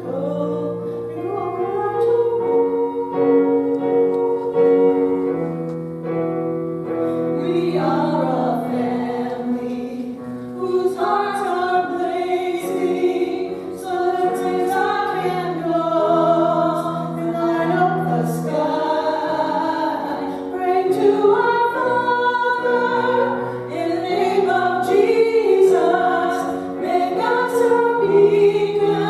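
Women singing a worship song as a duet over held instrumental accompaniment chords; the voices come in stronger about seven seconds in.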